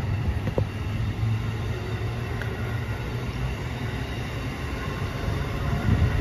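Amtrak Amfleet passenger coaches rolling past, a steady low rumble of wheels on the rails, with a few heavier thumps near the end.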